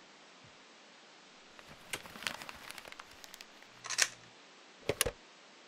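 Clicks and clacks of an old wall telephone's handset and dial being handled: a patter of small clicks, then two sharp clacks about a second apart near the end.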